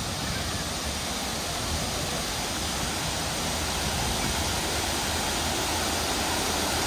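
Steady rush of water from a waterfall, growing slowly louder.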